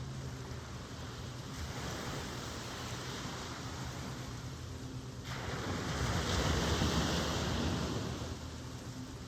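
Ocean surf: waves breaking and washing up on the shore. The wash swells a little about a second and a half in, then grows loudest about six seconds in and eases off near the end.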